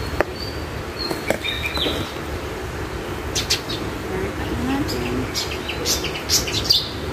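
Thin plastic nursery pot crackling and clicking as it is squeezed and turned to work a plant's root ball loose, with soil and leaves rustling. A bird chirps a few short, high, steady notes in the first two seconds.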